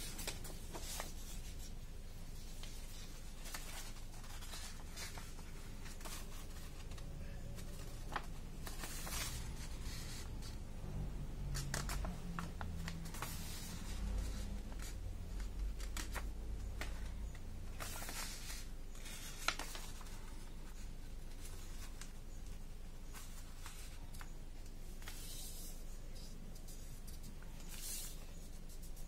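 A sheet of origami paper rustling and crackling as it is handled, folded corner to corner and its crease smoothed flat by hand. The sound is scattered soft rustles with one sharper crackle about two-thirds of the way through.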